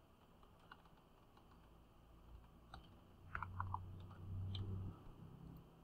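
Faint computer keyboard typing: a few scattered key clicks, then three quick keystrokes about three and a half seconds in, with a low hum underneath from about three to five seconds.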